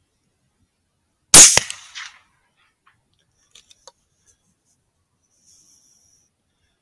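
A single .243 rifle shot: one sharp, loud crack about a second and a half in, its report dying away over the next second. A few faint clicks follow a couple of seconds later.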